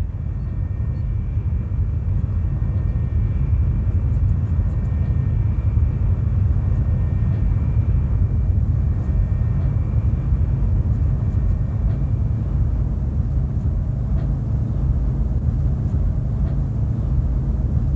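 Steady low rumble of a distant aircraft in flight, with a faint high whine that fades about halfway through.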